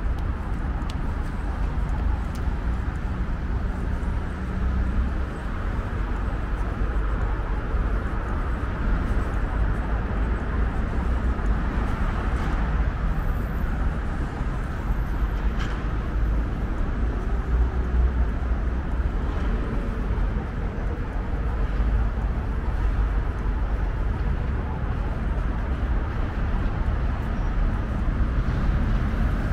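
Steady city street ambience of passing road traffic, with a constant low rumble.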